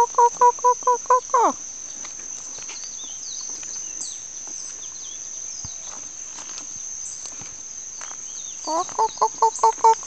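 A chicken cackling twice: a quick run of short clucks ending in a long falling squawk, once at the start and again near the end. A steady high insect drone runs underneath.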